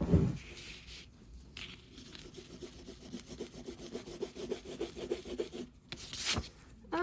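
Rubber eraser rubbing pencil lines off inked drawing paper in quick back-and-forth strokes. A thump comes at the start, and a short loud swish about six seconds in.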